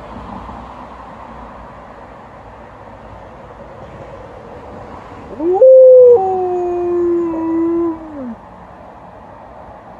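Alaskan Malamute howling: one long howl starts about five seconds in, rises sharply to a high note, steps down to a lower held note, and slides off before the end. Faint steady background noise comes before and after it.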